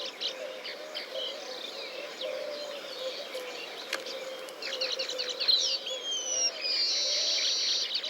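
Weaverbirds chirping and chattering, growing busier about five seconds in. Near the end comes a falling whistle, then a steady buzzy trill, over a faint steady hum.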